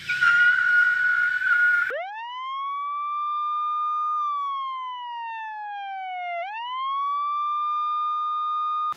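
A woman's loud, high held scream for about two seconds. Then a siren sound effect: a single tone that winds up fast, sinks slowly, winds up again near the end and holds.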